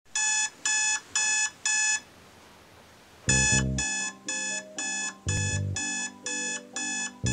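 iPhone alarm going off: four evenly spaced beeps about half a second apart, a pause, then the beeps resume about three seconds in with music coming in underneath.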